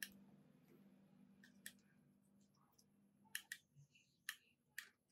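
Faint low hum of an electric soldering gun, dying away about three seconds in, with a series of sharp light clicks from wire leads and metal terminals being handled, most of them in the second half.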